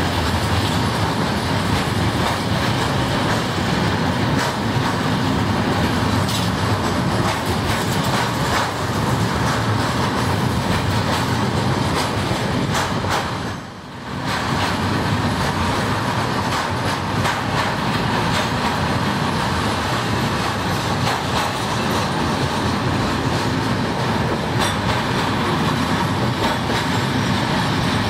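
Freight train of container flat wagons and tank-container wagons rolling past close by, a steady loud rolling noise from the wheels on the rails with faint repeated clicks. It dips briefly about halfway, where two recordings are joined.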